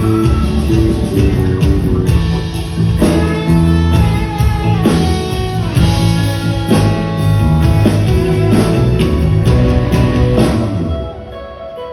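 Live band playing an upbeat song with guitar over bass and drums; the music dips in loudness briefly near the end.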